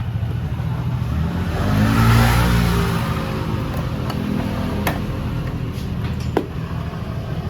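SYM Mii 110 scooter's engine running at idle, revved up once about two seconds in and then dropping back to idle. A few sharp clicks follow in the second half.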